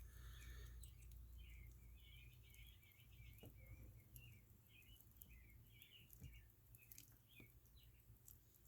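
Near silence: faint, rapid bird chirping over a low steady hum, with a few faint ticks.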